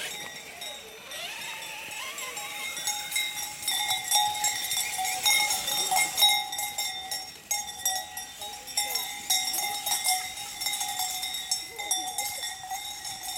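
Cowbells on running cattle clanking and ringing irregularly. Now and then the whine of an HPI Savage Flux HP RC truck's brushless electric motor rises and falls.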